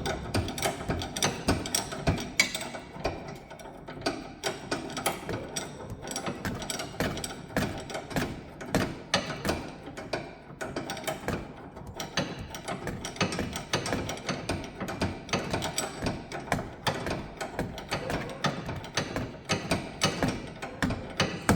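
Hand ratchet wrench clicking in quick, uneven runs as the nut on a stabilizer link is run down and tightened by hand.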